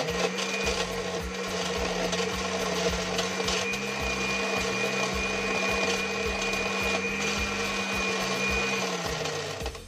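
Imarflex Power Blender's motor and six stainless steel blades running steadily in a 1200 cc glass jar, churning an icy yellow shake whose ice was only partly crushed on the first run. It starts right away, a thin high whine joins about a third of the way through, and the motor winds down with falling pitch near the end.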